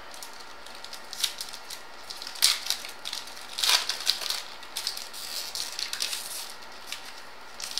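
Baseball trading cards handled and flipped through by hand: irregular light flicks and rustles as cards slide off the stack one after another.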